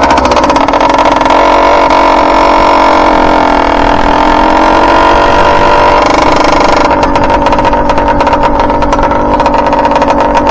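Motorized bike's small engine running under throttle while riding, its note fairly steady, then about seven seconds in easing off to a rougher, pulsing run. The engine is still in break-in and jetted very rich on the main jet.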